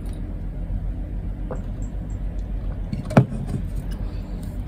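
Steady low mechanical hum, with a single sharp knock about three seconds in as a drink can is set down on a wooden table.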